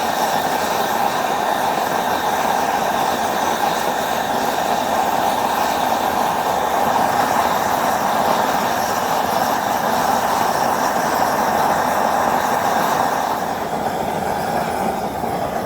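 Propane gas forge burner running with a steady rushing noise as it heats a metal rod, easing off slightly near the end.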